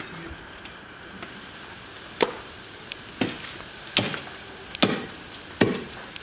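A long pole jabbed repeatedly into a hole at the foot of a concrete wall, digging it open: five sharp knocks about a second apart, starting about two seconds in.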